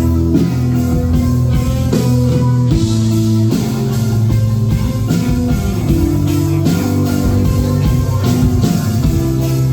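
Rock band playing an instrumental passage: guitar and bass holding notes that change about once a second over a steady drum beat.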